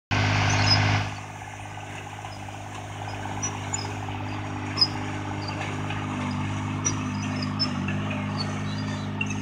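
John Deere 430 garden tractor's three-cylinder diesel engine running steadily under load while pulling a disc harrow through worked soil. A louder rush of noise in the first second, and faint high chirps scattered throughout.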